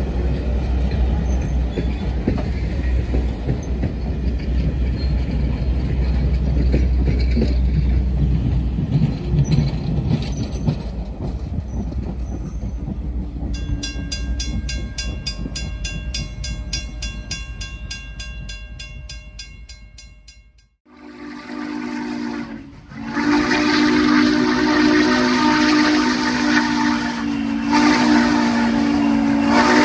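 Passenger coaches of a steam excursion train rumbling past over the rails, then a grade-crossing bell ringing evenly and fading away. After a sudden cut, N&W 611's steam whistle blows: a shorter blast, a brief break, then a long loud held blast to the end.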